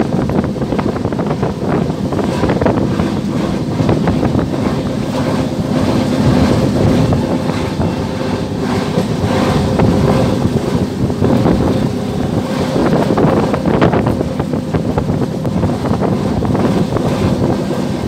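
Wind rushing past the open door of a moving train and buffeting the microphone, over the steady running noise of the carriage on the rails.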